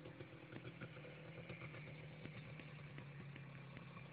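Faint, steady low hum of an idling engine, with scattered faint ticks.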